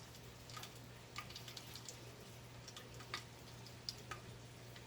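Faint, irregular little clicks and ticks, a few a second, over a low steady hum.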